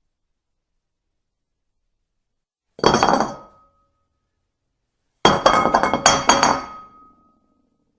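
Dishes clinking together with a bright ring: a short rattle of clinks about three seconds in, then a longer run of clinks a couple of seconds later.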